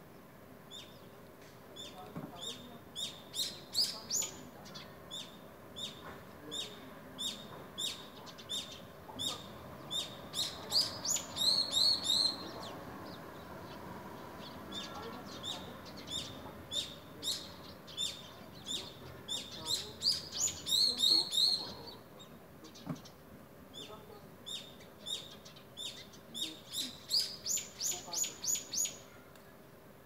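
Small songbirds chirping: runs of short, sharp, high calls several a second, broken twice by bursts of rapid trilling, about a third of the way in and again past two-thirds.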